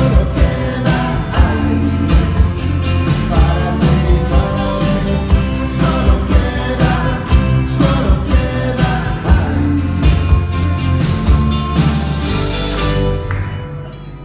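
Live band music: the closing bars of a pop song, played by a full band with a steady drumbeat. The music stops about a second before the end.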